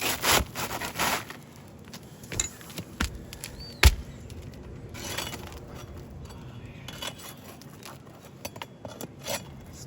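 A flat pry bar working under asphalt shingles to pull roofing nails: scraping in the first second, then scattered metallic clinks, with one sharp metal knock about four seconds in.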